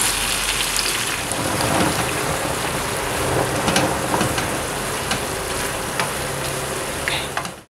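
Tomato sauce with fried aubergine slices sizzling steadily in a frying pan, with light knocks of a wooden spoon as the slices are turned in the sauce. The sizzling cuts off abruptly near the end.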